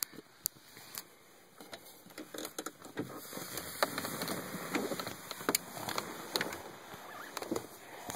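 Handling noise from a camera being moved about: irregular clicks and rubbing, busier and louder through the second half.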